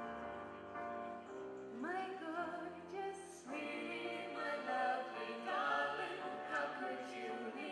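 Live band music: several voices singing together in harmony over held keyboard chords, the voices moving to new notes every second or two.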